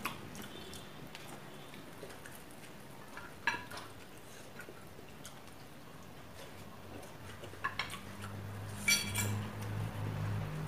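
Scattered clinks and taps of cutlery and hands against ceramic plates during a meal, with a brighter ringing clink about nine seconds in.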